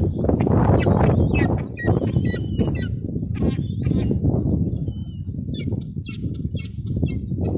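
Gulls calling: many short, high cries, some gliding in pitch, over a steady low rumble.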